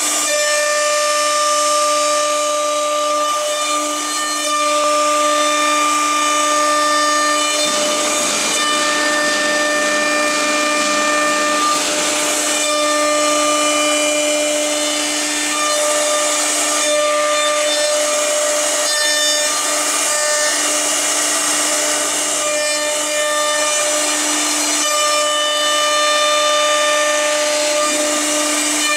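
CNC router spindle running at a steady high-pitched whine while its cutter mills the workpiece, with the continuous hiss of cutting over it.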